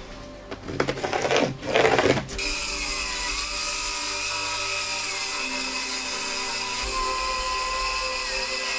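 Ryobi 18V brushless cordless circular saw cutting, a steady whine whose pitch dips briefly under load; it starts about two seconds in, after a few short knocks and handling noises.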